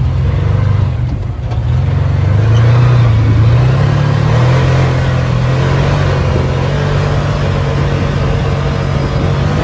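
UTV side-by-side engine running under load up a dirt track, heard from inside the open cab. Its note rises about two seconds in and then holds steady over a constant rushing noise.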